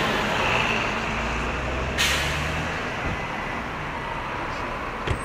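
City street traffic: a vehicle engine hums low, with a sudden short hiss about two seconds in and a brief click near the end.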